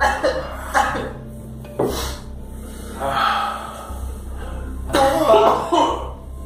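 Several people gasping and breathing hard, with a few short coughs and sniffs, as they react to the burn of Carolina Reaper hot sauce; the loudest run of gasps comes about five seconds in.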